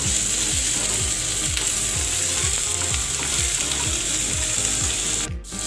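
Sliced onions, garlic and ginger sizzling in hot oil in a non-stick wok while a metal spatula stirs and scrapes through them in repeated strokes. The sound cuts out briefly near the end.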